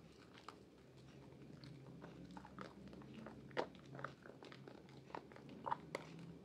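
Lather-covered hands squeezing and kneading a bar of soap in thick foam, giving soft wet squishes with irregular small crackles and pops. A few sharper pops stand out about halfway through and near the end.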